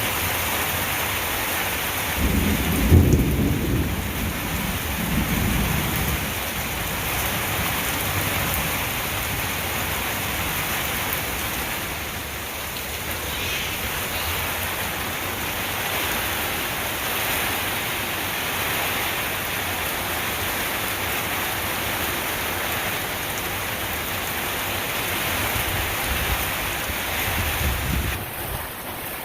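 Heavy rain falling steadily, with a loud roll of thunder about two to six seconds in and a softer rumble of thunder near the end.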